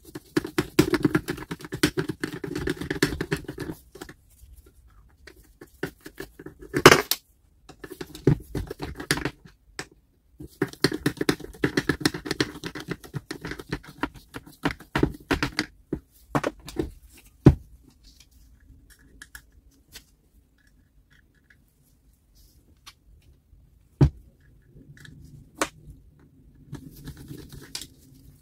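Hand work on small metal grinder parts: stretches of rapid scraping and clicking, broken by a few sharp single knocks, then a quieter spell with only scattered clicks.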